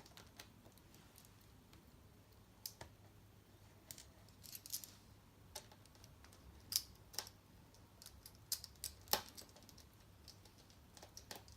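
Faint, irregular small clicks and taps of a small Phillips screwdriver working tiny screws out of a laptop screen panel.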